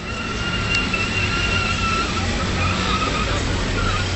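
Small hatchback engine running under throttle as the car makes a tight turn, with a wavering high squeal that is strongest in the first couple of seconds and then breaks up.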